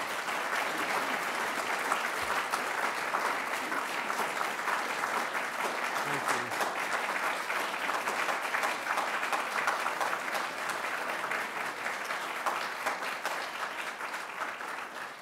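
Audience applauding: many hands clapping in a steady, dense patter that fades away near the end.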